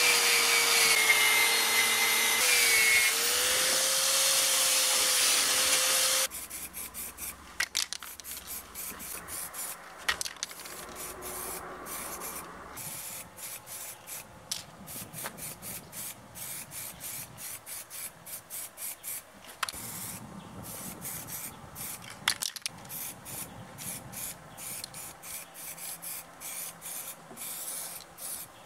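A power tool runs with a loud steady hiss and hum for about six seconds, its pitch dipping briefly under load, then cuts off. A long run of quick hand scraping strokes follows, several a second, with a few sharper ticks, as in cleaning up a metal brake part by hand.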